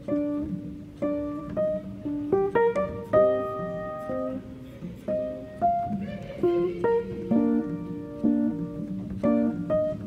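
Background music: a melody of plucked-string notes, each struck and left to fade.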